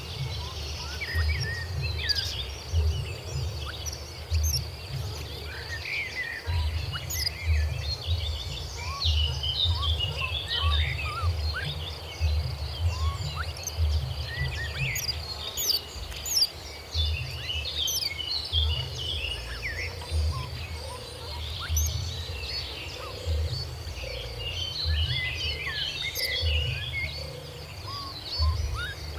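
Many birds chirping and calling in quick, overlapping short notes, over a faint steady high-pitched drone and irregular low rumbling.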